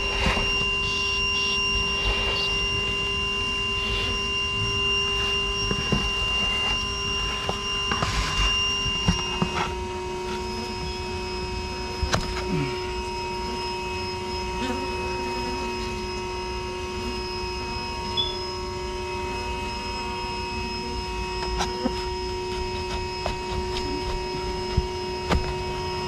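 Bee vacuum motor running with a steady whine, its pitch stepping down slightly about ten seconds in, with scattered light clicks.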